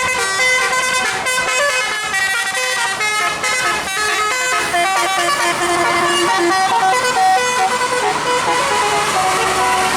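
Bus telolet musical air horn (Basuri horn with roof-mounted trumpets) playing a quick tune of short stepped notes, several pitches at once, with a few longer held notes in the middle.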